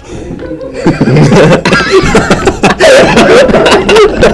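Teenage boy laughing uncontrollably in fits. It is fairly quiet for the first second, then turns loud and breathy with quick rising and falling bursts.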